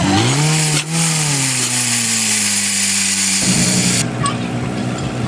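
Portable fire pump engine revs up sharply, then its pitch sinks slowly as it settles under load, over a steady hiss. About three and a half seconds in, a cut brings in another pump engine running steadily, and the hiss stops soon after.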